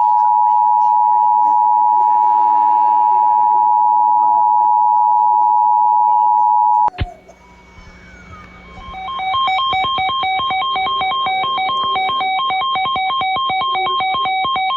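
Emergency Alert System attention signal: a loud, steady two-tone alarm that cuts off suddenly about seven seconds in. About two seconds later a fast-trilling electronic ringing tone starts and keeps going.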